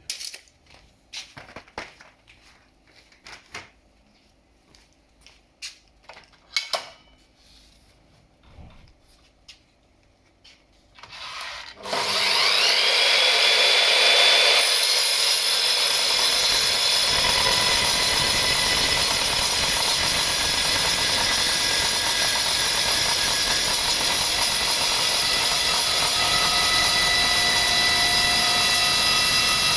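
Scattered knocks and clicks of handling for about twelve seconds, then a circular saw starts with a rising whine and its SabreCut multi-material blade cuts into a 50 mm solid mild steel bar, a loud, steady cutting noise with high ringing tones.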